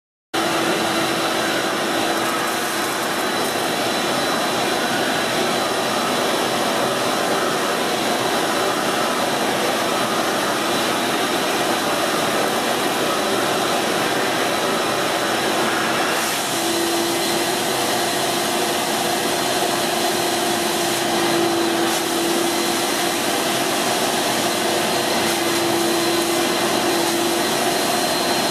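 Kärcher Puzzi 100 spray-extraction carpet cleaner's suction motor running with a steady whine as its hand nozzle sprays and extracts a stain from carpet. It cuts in suddenly at the start, and the whine shifts slightly in pitch about halfway through.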